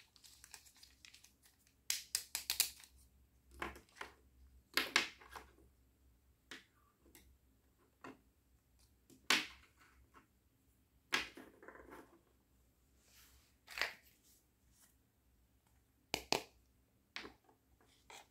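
Plastic toy cutlery (spoons, forks and knives) clicking and tapping as the pieces are handled and set down one by one on a table: scattered separate clicks with a short rustle about two-thirds of the way in.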